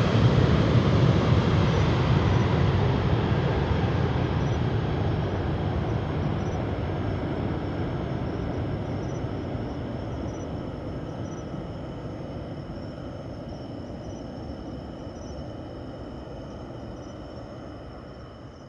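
The twin General Electric CF6-80C2 turbofans of a departing Boeing 767-300ER airliner at takeoff power. The jet noise is a low, even rumble that fades steadily as the aircraft climbs away.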